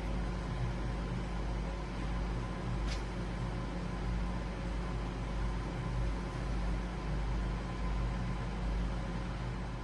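Steady hiss with a low electrical hum and a faint steady tone above it, with no voices. A single faint click about three seconds in.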